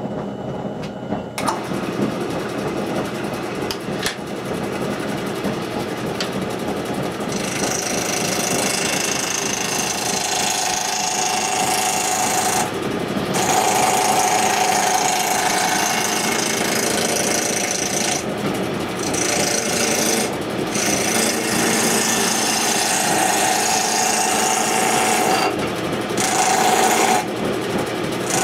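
Wood lathe starting up about a second in, then a turning tool cutting into the spinning blank as it is roughed from square to round, in passes broken by several short breaks where the tool is lifted off.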